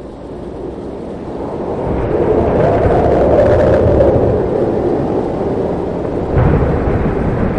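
Thunderstorm sound effect: a long, heavy roll of thunder swells up and slowly eases off, and a fresh rumble breaks in about six and a half seconds in.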